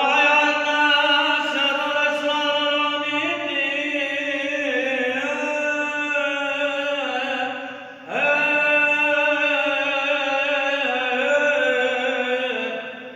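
A priest's solo male voice chanting a liturgical prayer in long held phrases that step from note to note, with a short breath-break about eight seconds in.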